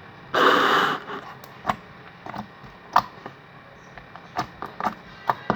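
Slime with lotion mixed in being squeezed and kneaded by hand, making loud slime noises: a harsh half-second squelch about half a second in, then scattered sharp clicks and pops of air escaping from the slime.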